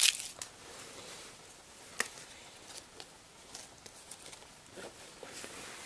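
Cotton T-shirt being unfolded and smoothed out by hand: soft cloth rustling, with a sharp rustle right at the start and a single click about two seconds in.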